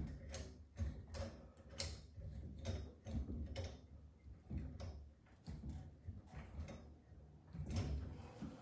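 Supply-line connections under a sink being tightened with a hand tool: irregular clicks, about two or three a second, over dull low knocks.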